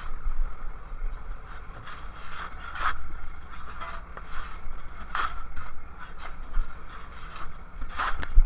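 Shovels scraping and scooping through crushed ice and tossing it into an insulated fish box, in irregular strokes with the sharpest scrape near the end.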